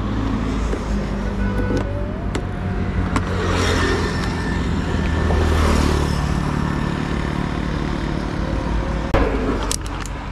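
Road traffic passing on a multi-lane highway, with a steady low hum and a couple of vehicles swelling past about midway. A few sharp clicks near the end.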